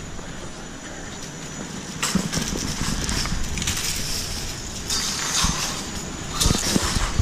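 Rustle and knocks from a handheld camera being carried on foot over a steady rushing hiss that gets louder about two seconds in, then a glass door being pushed open near the end.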